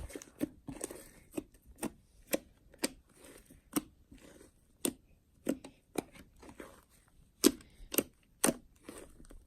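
Homemade slime being squeezed and kneaded by hand, giving irregular sharp clicking pops, about two a second, the loudest ones near the end.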